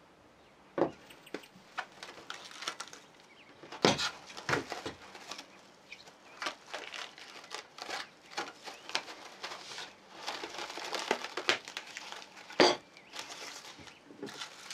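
Plastic cling film pulled from its roll and stretched crinkling over a stainless steel bowl, with many small crackles. A few sharper knocks stand out, about a second in, about four seconds in, and the loudest near the end.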